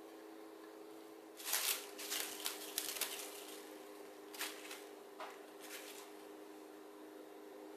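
Plastic cling wrap crinkling and rustling in short bursts as it is stretched and pressed over a baking tray, a cluster of crackles followed by three shorter ones, over a faint steady hum.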